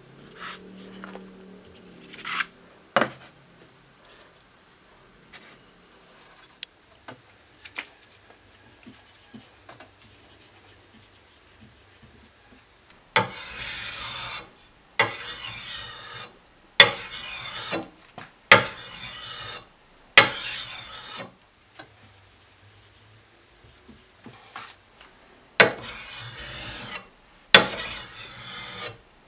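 Antique meat cleaver's steel blade stroked along a whetstone, about eight rasping strokes of about a second each in two runs, each starting with a sharp tap as the blade meets the stone. A few light knocks of handling come first.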